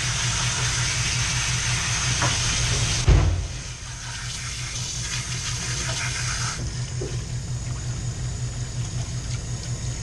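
Pressurized water from a hose spraying into a utility mop sink while a removed Y-strainer is rinsed, over a steady low hum. A loud thump comes about three seconds in, after which the water sound is quieter.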